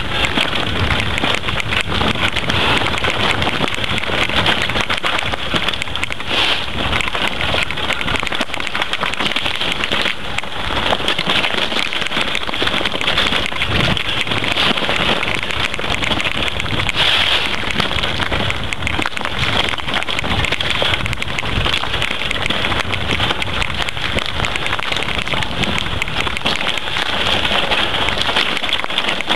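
Mountain bike rolling fast downhill over a loose stony trail: a steady, dense crackle and rattle of tyres over gravel and rocks, with the bike and camera mount shaking.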